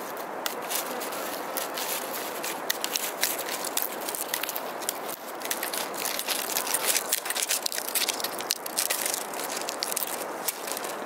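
Split bamboo strips crackling and clicking as a basket is woven by hand: many sharp ticks, thickest about six to ten seconds in, over a steady hiss.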